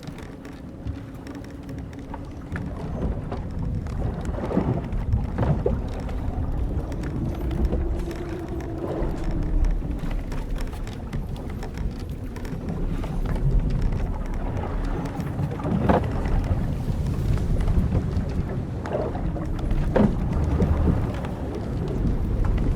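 Old wooden sailing ship's timbers and rigging creaking as the boat rocks: a long low creak that slowly rises and falls in pitch in the middle, and a few short, sharper creaks and knocks, over a steady low rumble of wind and sea.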